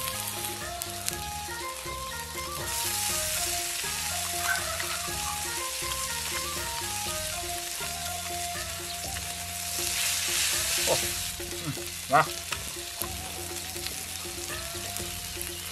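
Beef steaks and meat skewers sizzling on a hot iron teppanyaki griddle, the sizzle growing louder twice, about 3 s and 10 s in. Light background music with a simple melody plays under it, and a single sharp click comes about 12 s in.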